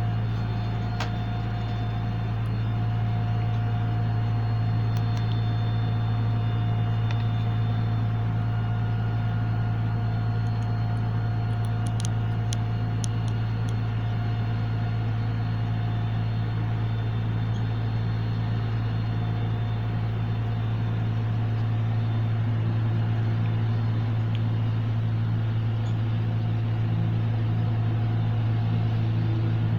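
Ceiling fan motor humming steadily as the fan runs up to speed, with a low hum and a fainter higher whine; a few faint ticks around the middle.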